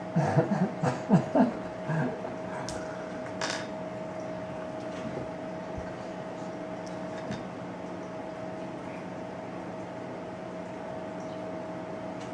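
A steady electrical hum at one pitch, like a household appliance or fan running. A soft voice murmurs in the first couple of seconds, and there are two brief clicks a little after that.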